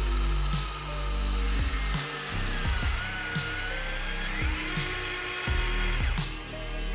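Whine of a Huina remote-control toy excavator's electric motors and gearboxes as the boom and bucket move while digging in sand. The pitch dips about three seconds in and climbs again about a second later. Background music plays throughout.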